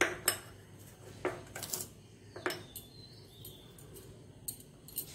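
A spoon clinking and tapping against a glass bowl: a handful of sharp, separate clinks as salt is spooned onto raw chicken for the marinade.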